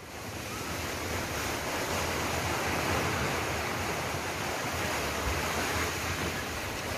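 A multi-storey concrete apartment building collapsing in an earthquake: a sustained rushing roar of falling rubble and dust that builds up over the first second and then holds steady.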